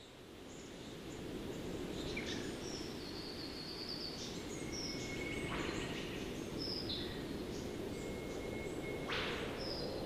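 Rainforest ambience fading in: a steady low rush under several birds calling, with high chirps and whistles, a long held whistle, and two sharp sweeping calls about five and nine seconds in.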